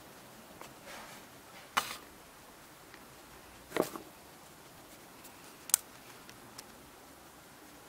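Hard plastic clicks from handling a Sony action camera's clear waterproof housing: three sharp clicks about two seconds apart, the last as the housing's yellow latch is flipped open, with a few fainter ticks between.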